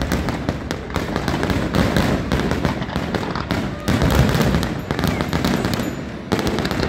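Fireworks display: aerial shells bursting with dense, rapid crackling and repeated booms, the heaviest booms about four seconds in.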